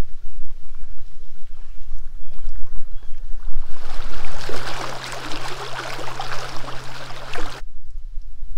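Wind rumbling on the microphone. From about three and a half seconds in, small waves lap and splash against a rocky lake shore over a steady low hum, and both cut off suddenly near the end.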